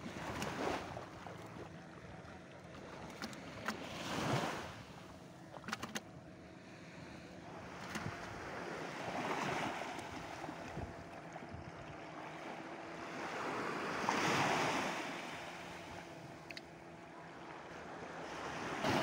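Small waves washing onto a sandy beach, the rush of surf swelling and fading about every five seconds, with a few light clicks.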